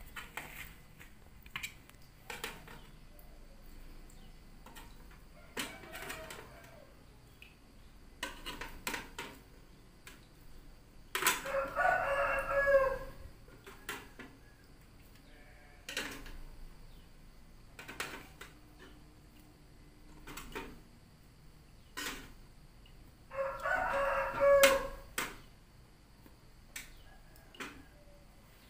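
A rooster crows twice, about twelve seconds apart, each crow lasting under two seconds, with fainter calls earlier. In between, metal tongs click sharply against an aluminium steamer pot and tray.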